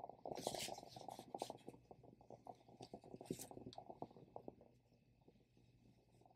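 Faint, irregular crinkling and rustling of lightweight satin fabric being handled, with a few sharper crackles in the first few seconds, then tailing off. A faint steady low hum lies underneath.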